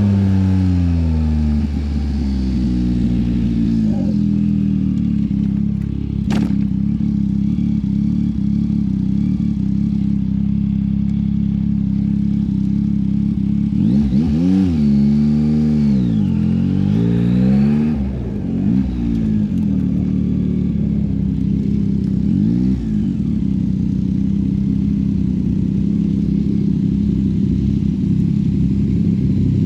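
Yamaha MT-09 SP's inline three-cylinder engine through a LeoVince LV Race exhaust: the revs fall at the start, then it runs steadily, with a few quick throttle blips rising and falling in the middle. A single sharp click about six seconds in.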